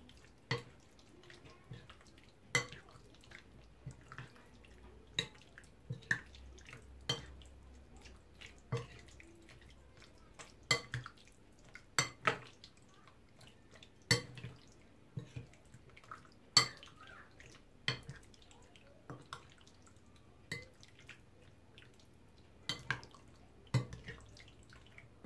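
A metal spoon clinking irregularly against a glass bowl, about once every second or two, while stirring cubed raw chicken in a wet marinade.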